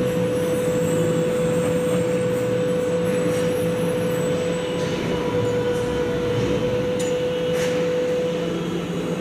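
Heavy machinery running steadily: a dense drone with a constant mid-pitched whine that stops about eight seconds in, with a few faint clicks.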